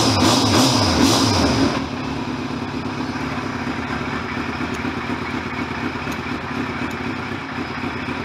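1989 Kawasaki GPX750R's inline-four engine running with the choke off. It is given a couple of quick throttle blips, then settles into a steady idle about two seconds in.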